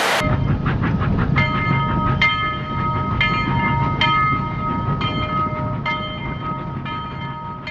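Lionel model train running on the layout: a low rumble of motor and wheels on the track, with a bell-like ring struck about once a second. It fades toward the end.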